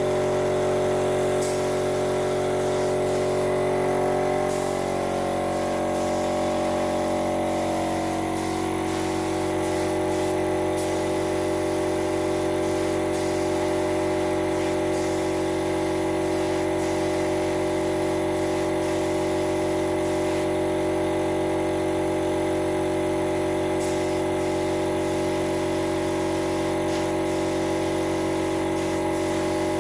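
Background electronic music with held synth chords that change about five seconds in.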